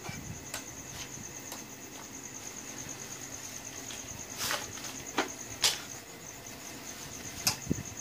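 A steady, high, rapidly pulsing trill like an insect's, with a handful of sharp clicks and knocks, the loudest about four and a half and five and a half seconds in.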